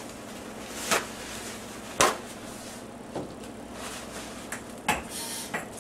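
Kitchen handling noise: about five sharp knocks and clacks of things being put down or moved, the loudest about two seconds in, with a short hiss near the end, over a low steady hum.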